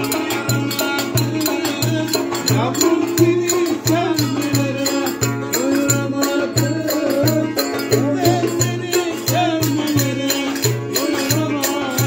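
Live Turkish folk music: a hand drum beating a steady, even rhythm under a melody played on a long-necked lute.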